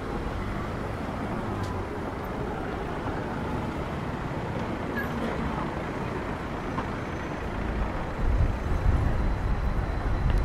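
Road traffic noise: a steady low rumble, growing louder and uneven near the end.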